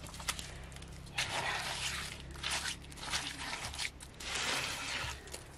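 Wet mud being pressed and smeared by hand onto stacked mud bricks: a series of short, gritty scraping and squelching strokes, with a few sharp clicks.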